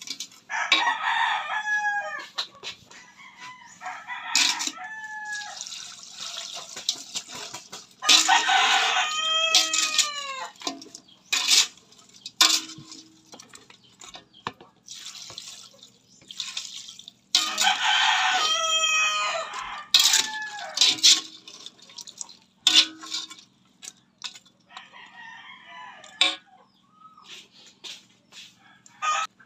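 A rooster crowing about five times: long calls whose pitch rises and falls in an arch, the longest about nine seconds in. Scattered sharp knocks and clicks come between the crows.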